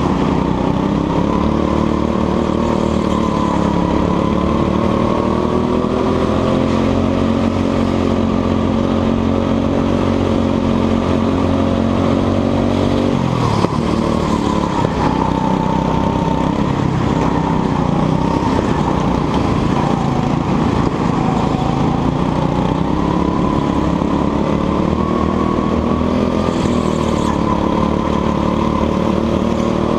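A go-kart engine heard from on board, revving continuously as the kart laps the track, its pitch rising and falling with the throttle through the corners. About halfway through the revs drop sharply and then climb again.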